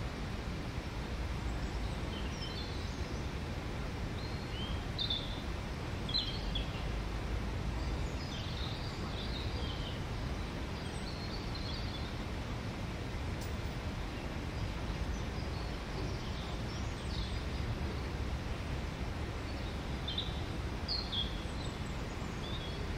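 Small birds chirping in short, scattered high phrases over a steady low background rumble.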